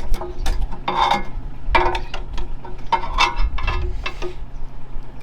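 Hand tools working on the bolts of a Claas rake's gearbox: irregular metallic clanks and clicks, one or two a second, some ringing briefly, over a steady low hum.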